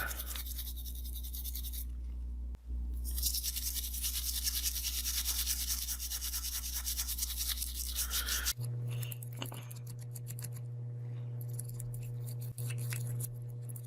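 A small electric motor buzzing steadily under a dense scrubbing hiss; about two thirds of the way through the hum shifts higher and the hiss gives way to scattered light clicks.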